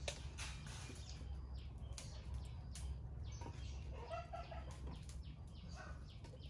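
Chickens clucking faintly a few times around the middle. Light taps and rustles come from cabbage rolls being handled on a wooden tray, over a low steady background rumble.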